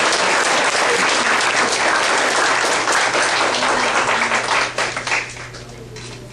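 Audience applauding, many hands clapping at once, dying away about five seconds in. A steady low hum sits underneath.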